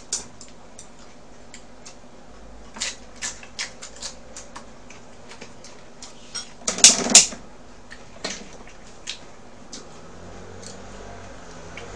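Eating sounds at a table: scattered sharp clicks and taps of chopsticks on dishes and the pan, with chewing, and a louder clatter about seven seconds in.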